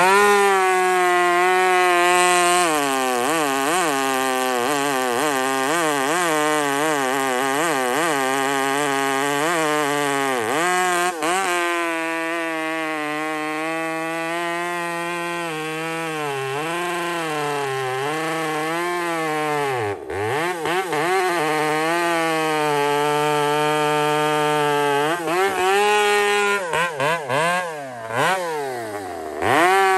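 Husqvarna 372XP two-stroke chainsaw cutting through a large log, its engine pitch sagging and recovering as the chain pulls through the wood. About two-thirds through the throttle drops briefly, and near the end it is let off and revved up again several times.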